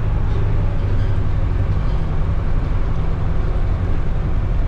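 Steady rumble of engine and road noise from a moving vehicle, the converted minibus motorhome, heard from inside the cab.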